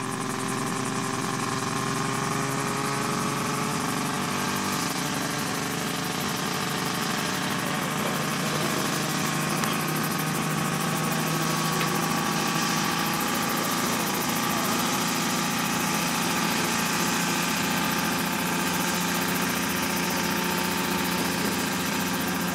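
Mosquito ultralight helicopter's engine running steadily, its pitch creeping slowly upward over the first several seconds, then holding.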